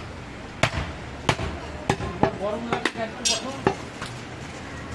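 Butcher's cleaver chopping through a goat's ribs onto a wooden log chopping block, about six sharp chops at an uneven pace.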